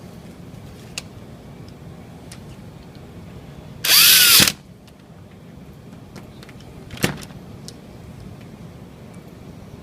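Cordless drill/driver runs in one short burst of about half a second, about four seconds in, driving a screw into a casement window's corner pivot. Its whine drops in pitch as it spins down. There are sharp clicks about a second in and again near seven seconds.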